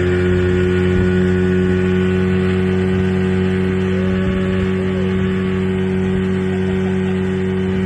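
1978 Evinrude 35 hp two-cylinder two-stroke outboard motor running at a steady speed.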